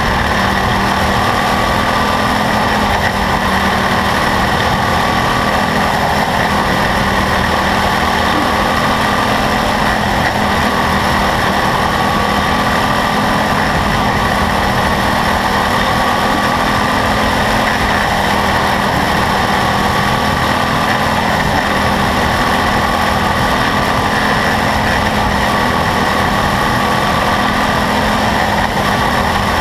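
Quarter midget race car's small engine running steadily at racing speed, heard close up from the car itself, its pitch wavering slightly.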